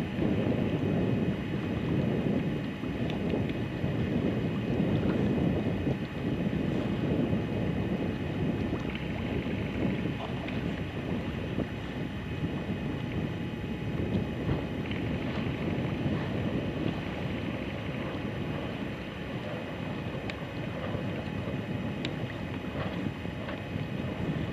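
Wind buffeting the microphone: a low, gusty rumble of noise that rises and falls unevenly.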